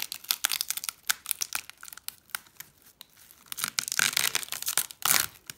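Glass-tile mosaic on fibreglass mesh being peeled away from cling film, with the glued backing separating from the plastic in a dense run of small crackles and crinkles. It gets louder about four to five seconds in.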